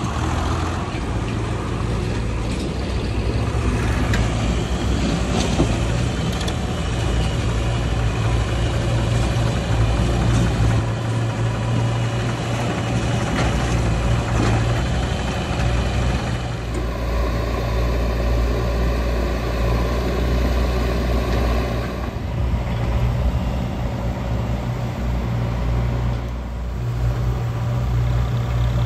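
Diesel engines of a JCB 3DX backhoe loader and farm tractors running steadily with a deep, low hum. The mix changes abruptly about halfway through.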